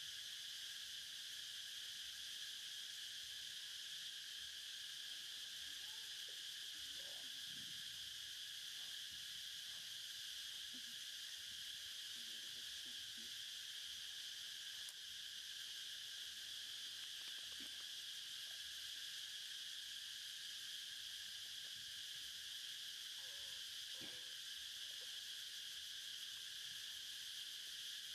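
Steady, high-pitched drone of an insect chorus, unchanging throughout, with a few faint soft sounds now and then.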